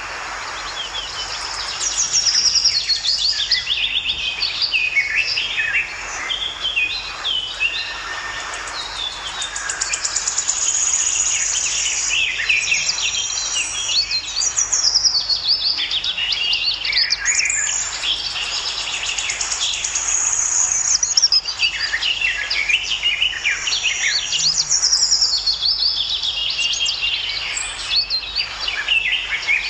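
Several birds chirping and singing in a dense, continuous chorus of high, quick chirps and trills.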